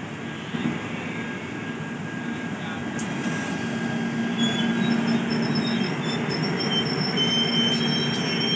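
Indian Railways LHB passenger coaches rolling past along the platform as the express arrives, a continuous rumble of wheels on track. Thin high-pitched squeals set in about halfway through and grow stronger as the train brakes to a stop.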